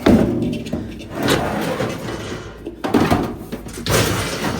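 Scrap metal being handled and thrown into a van: a series of heavy clanks and clatters, about five impacts roughly a second apart, the first ringing briefly.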